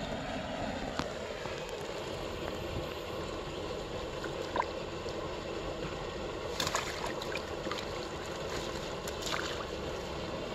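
A net bag dipped and swished in shallow pond water, with small splashes and sloshes, the sharpest a little past halfway and again near the end, over a steady background noise. A couple of small clicks come earlier.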